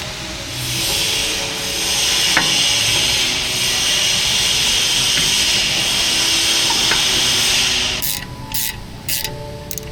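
Steady abrasive scraping on brake parts during a brake service, breaking off about eight seconds in into a few short, separate strokes.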